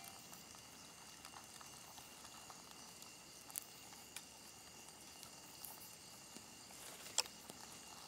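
Faint steady high-pitched trill of night insects, with a few light clicks; the sharpest click comes about seven seconds in.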